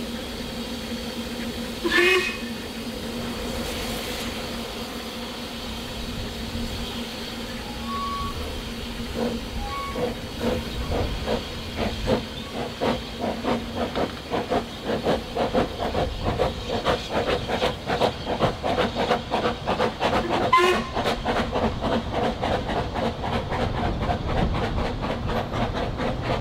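Narrow-gauge steam locomotive pulling its train away. Steam hisses, and a short whistle sounds about two seconds in. From about ten seconds in, the exhaust beats start and quicken as the train gathers speed, with another brief whistle near the end.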